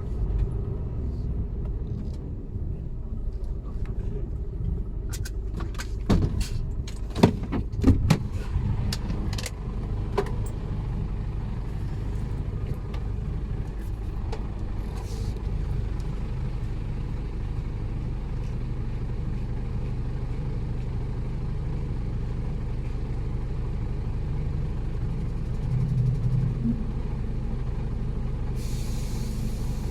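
Mercedes-Benz Actros truck's diesel engine idling steadily, with a cluster of sharp clicks and knocks about six to ten seconds in and a hiss near the end.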